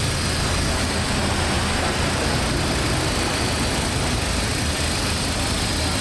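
A vehicle engine running steadily: a low drone under an even hiss.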